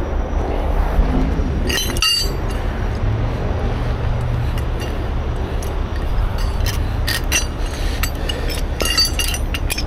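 Steel recovery chain and hook clinking and rattling as they are handled, with a scatter of sharp metallic clinks in the second half, over a steady low engine rumble.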